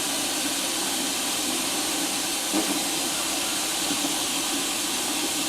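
Steady hiss of shop compressed air rushing through an Airlift venturi vacuum tool as it pulls a vacuum on the engine's cooling system.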